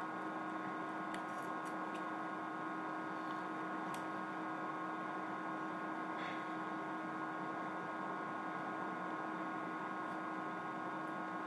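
Steady electrical hum with a constant hiss underneath. A few faint clicks come and go, from work on the phone's tiny screws with a precision screwdriver.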